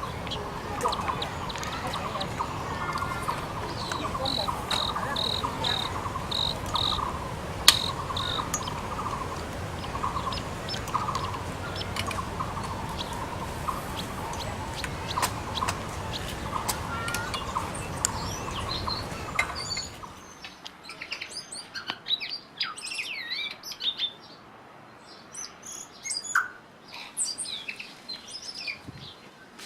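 Taiwan barbet calling: a long run of repeated low notes over a steady background hiss, joined for a few seconds by a run of higher repeated notes. About two-thirds of the way through, the hiss suddenly drops away and small birds chirp in quick, high notes.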